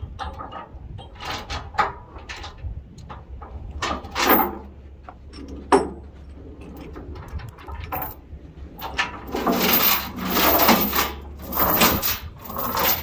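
Steel tie-down chains rattling, clanking and scraping in irregular bursts as they are handled and dragged over the trailer, with a steady low hum underneath.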